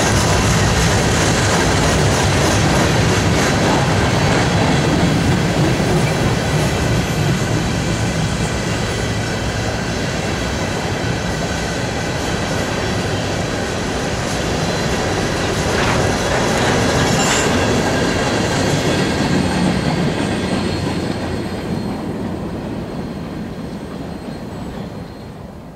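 A string of BNSF covered grain hopper cars rolling past on the rails at the tail of a freight train, with a thin, steady high-pitched wheel squeal over the rumble. The sound fades away near the end as the last car goes by.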